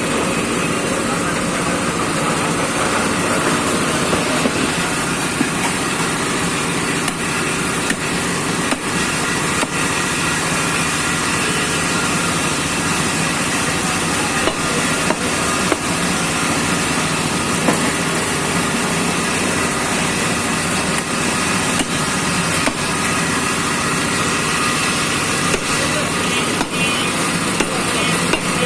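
Steady roadside street noise of traffic and voices, with scattered sharp knocks of beef being cut at a butcher's stall.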